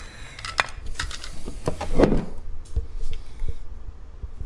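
Tama Speed Cobra 910 bass drum pedal being handled: scattered metal clicks and clinks from its frame and chain drive, with a louder knock and rub about two seconds in.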